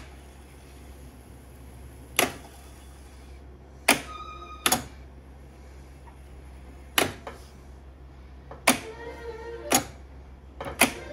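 Open-reel tape deck's transport clunking as its buttons are pressed, about eight sharp clicks with the music cut off and a low hum between them. There is a short high whine about four seconds in.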